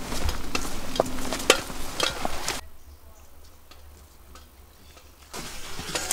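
Hikers' footsteps crunching and scuffing on a dry dirt trail strewn with leaves and twigs, with dense sharp clicks. The steps drop to a faint hush for a few seconds in the middle and come back close near the end.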